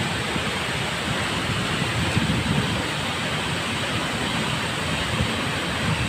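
Steady rushing noise of a large waterfall pouring into its pool.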